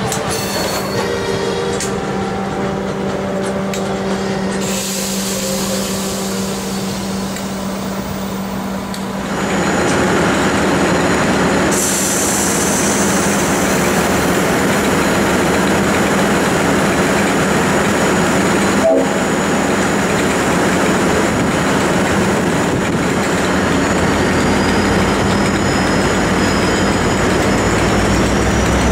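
A diesel passenger train moving slowly through the station: first a steady hum as carriages roll past, then, from about a third of the way in, the louder running of a V/Line A Class bulldog-nosed EMD diesel locomotive with its wheels rumbling over the track. Near the end a thin, rising wheel squeal comes in.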